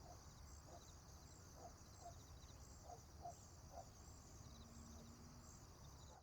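Faint morning farm ambience: birds chirping in a steady repeating pattern, with short distant animal calls now and then over a low rumble. A brief low hum comes in near the end.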